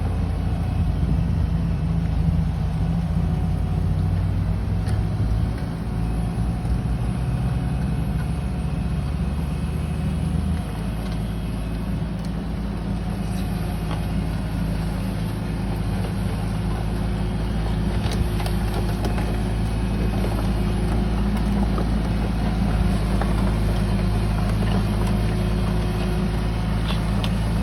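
Kubota KX033 mini excavator's diesel engine running steadily while its hydraulics work the arm, lifting a 60 cm pipe. The engine note changes about ten seconds in, and there are a few faint knocks later on.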